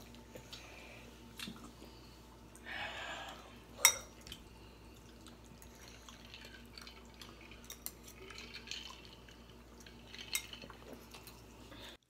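Quiet mealtime table sounds: forks clinking and scraping on ceramic bowls, with scattered small clicks. A short soft rustle comes about three seconds in, and one sharp clink follows just before four seconds.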